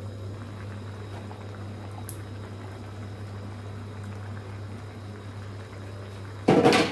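Meat, tomato and kidney bean sauce simmering in a frying pan, bubbling gently over a steady low hum. Near the end there is one brief, louder scrape or clatter.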